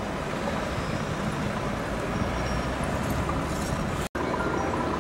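Road traffic noise: a car driving past, a steady rush of engine and tyre noise. The sound cuts out for an instant about four seconds in.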